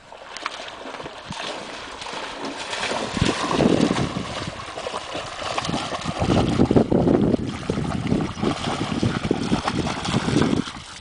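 A Siberian husky's legs splashing through shallow river water at a run, in quick irregular splashes. The splashing grows louder over the first few seconds as the dog comes close.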